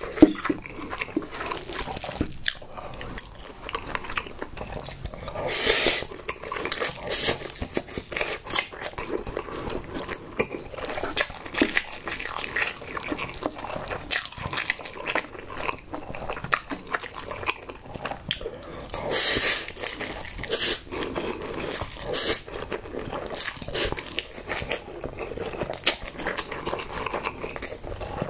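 Close-miked eating sounds of a man eating carbonara buldak instant noodles: wet chewing and mouth smacking, with noodles slurped in longer draws about six seconds in and again around nineteen seconds.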